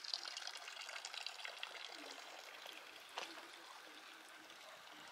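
Faint running water trickling, growing fainter, with a short sharp click about three seconds in.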